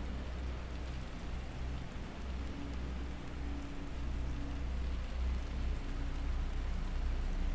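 Binaural beats meditation track: steady low droning tones under an even rain-like hiss, with a faint higher tone that swells in and out.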